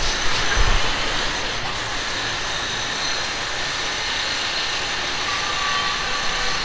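Steady roar of a gas burner firing under the curry pot.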